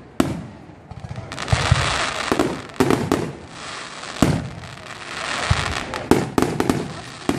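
Aerial firework shells bursting in a display: a string of about eight or nine sharp bangs at irregular intervals, with stretches of hiss between them.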